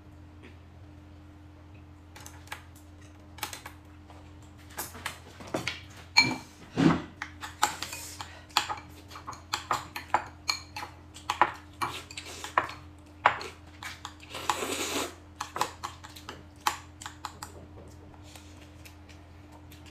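Tableware clinking during a meal: utensils knocking against bowls and plates in many short, irregular clicks, with a longer rasping noise lasting about a second three-quarters of the way through. A steady low electrical hum runs underneath.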